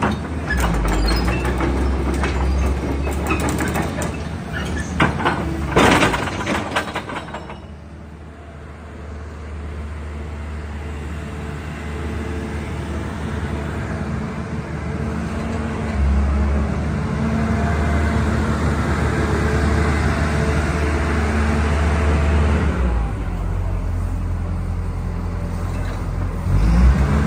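Caterpillar hydraulic excavator's diesel engine running while the boom and bucket are worked. There are several sharp metal clanks in the first six seconds or so. The engine note grows louder from about halfway through, as the hydraulics take load.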